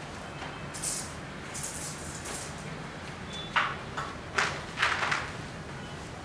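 Plastic packaging and screen material rustling and scraping in a few short bursts, the loudest cluster between about three and a half and five seconds in, as a large framed projection screen is handled on the floor.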